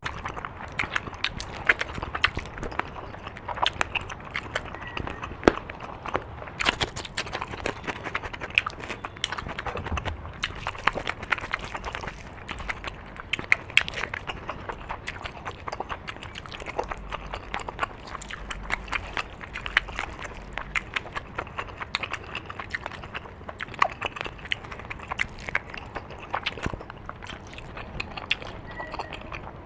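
Close-miked chewing and lip-smacking of a person eating, a dense run of irregular clicks and smacks several times a second.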